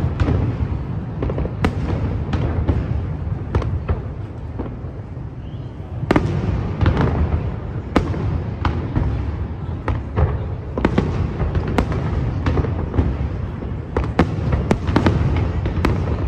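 Fireworks display: a steady run of aerial shell bursts and crackles, bangs coming every fraction of a second over a continuous low rumble, heavier from about six seconds in.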